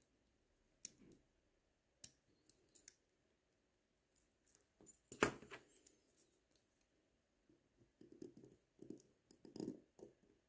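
Faint, scattered metallic clicks and taps of watchmaker's tweezers and small parts against a Miyota 8215 movement while its train wheel bridge is fitted, the sharpest click about five seconds in and a cluster of taps near the end.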